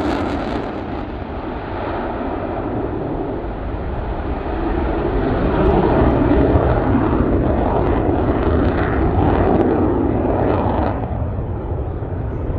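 F/A-18 Hornet fighter's twin jet engines running on afterburner through a display turn: a loud, rough jet noise that swells through the middle and eases off near the end.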